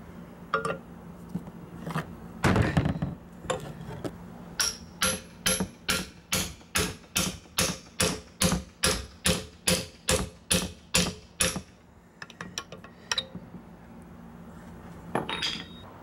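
Steel hammer striking a Dana 44 steering knuckle assembly: a few scattered knocks, then an even run of about twenty ringing metal blows, close to three a second, that stops about three-quarters of the way through.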